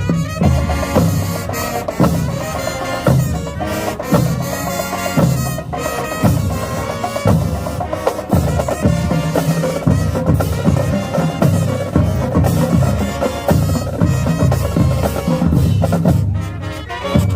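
Marching band playing: sustained horn lines over steady, heavy drumming, with a brief dip in loudness near the end.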